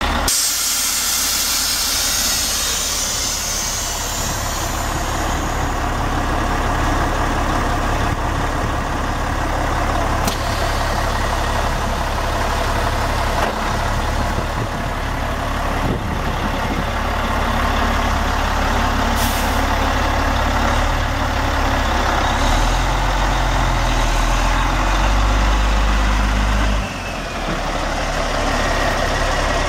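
Caterpillar C12 inline-six turbo diesel of a Sterling semi tractor running at idle, with a hiss in the first few seconds. About three-quarters of the way through, the engine note rises for a few seconds, then drops back to idle.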